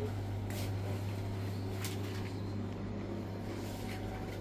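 A steady low hum, with two faint clicks about half a second and two seconds in.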